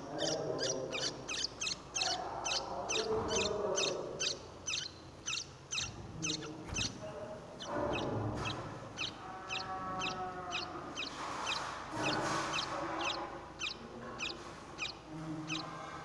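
Small birds chirping: short high chirps repeated evenly, about three a second, over fainter lower calls.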